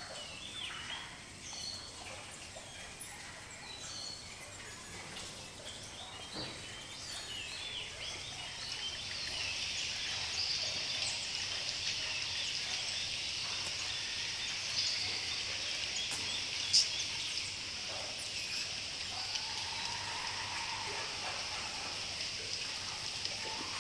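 Nature ambience soundtrack: scattered short bird chirps, then about nine seconds in a dense, shrill chorus rises and holds, with one sharp click a little before the end.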